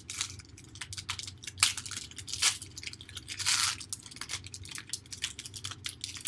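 Foil wrapper of a trading card pack crinkling and tearing open by hand: a run of sharp crackles, with a longer ripping tear about three and a half seconds in.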